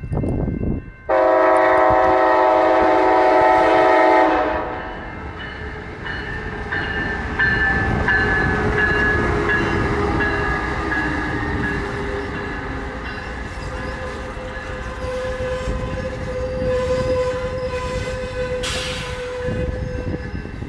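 A Caltrans Siemens Charger locomotive leading an Amtrak Capitol Corridor train sounds its multi-tone horn for about three seconds as it approaches. The train then rolls past with engine and wheel noise on the rails, a faint steady squeal-like tone, and a short hiss of air near the end.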